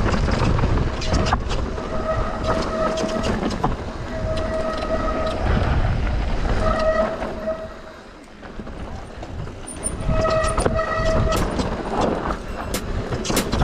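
Mountain bike descending a rough downhill trail: wind rumble on the action camera, with rattling and knocks from the bike over the ground. Four or five times, for about a second each, a steady high squeal from the disc brakes as the rider brakes. The trail noise drops briefly a little past halfway.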